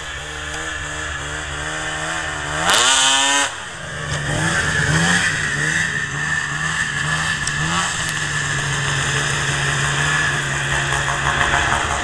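Modified 800 two-stroke engine of a 2004 Sno Pro race snowmobile idling, revved hard once about three seconds in, then blipped several times in short rising revs before settling back to a steady idle.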